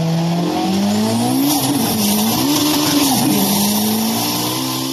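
Sports car engine sound effect revving, its pitch climbing in steps and then wavering, with a hiss of tyre screech joining about a second and a half in.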